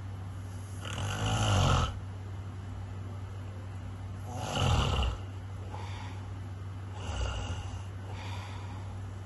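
Snoring: three snores about three seconds apart, the first two loud and about a second long, the third weaker, over a steady low hum.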